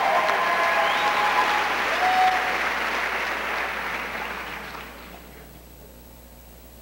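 Audience applauding and cheering, dying away about five seconds in.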